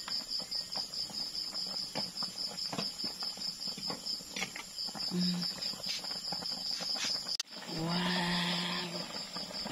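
Crickets chirping in a steady, fast-pulsing high trill, with a few light clicks of a metal ladle against the pan. Near the end, a short hum on one steady pitch lasts about a second.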